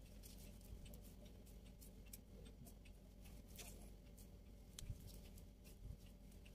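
Near silence: room tone with a faint steady hum and a few scattered faint clicks.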